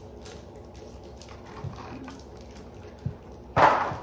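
Pokémon trading cards being handled and laid down on a leather ottoman: faint card ticks and a couple of soft taps, then a brief loud rustle near the end.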